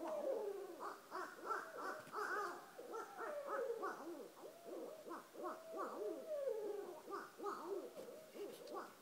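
Two barred owls calling together in a rapid, overlapping run of hoots and cackling notes, with several longer notes sliding down in pitch, typical of a pair's duet.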